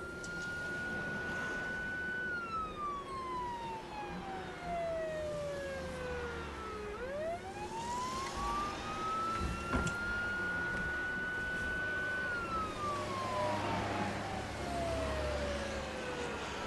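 A siren wailing slowly. Its pitch holds high, slides down over several seconds, sweeps back up about halfway through, holds and slides down again, over a low rumble.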